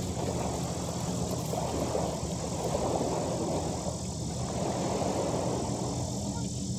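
A steady low engine hum under fluctuating outdoor noise from wind and small waves washing on the rocky lakeshore.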